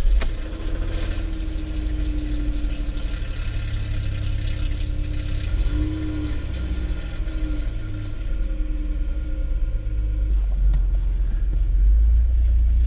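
Car engine running with a steady low rumble, growing louder near the end.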